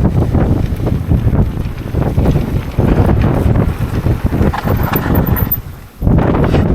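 Strong wind buffeting the microphone, a loud low rumble that drops away briefly near the end and then comes straight back.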